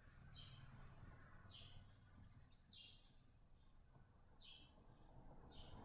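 Near silence with five faint, short high chirps a little over a second apart, a bird calling in the background; a thin steady high whine comes in about two seconds in.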